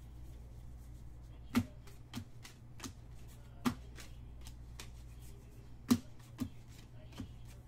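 Basketball trading cards being flipped through and set down on a table by hand: a handful of separate sharp clicks and taps, a few seconds apart, the loudest about a third and three quarters of the way in.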